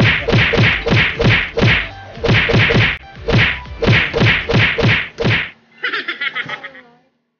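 Hands slapping and pounding a ball of siopao bread dough on a glass tabletop, a fast run of hard slaps about three a second with two short breaks. The slapping stops shortly before the end.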